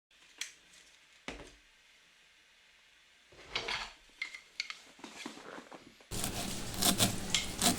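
Scattered clinks and scrapes of cooking utensils, a few at a time with gaps between. About six seconds in a louder, busier clatter over a steady background comes in suddenly.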